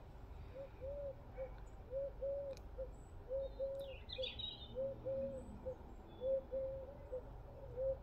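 A dove cooing steadily in low three-note phrases, the last note short, repeated about every second and a half. A brief higher bird chirp sounds about four seconds in.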